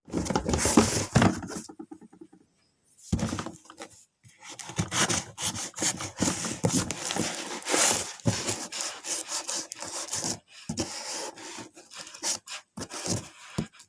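Packaging being handled and opened: irregular rustling, rubbing and scraping with sharp crackles, pausing briefly about two seconds in.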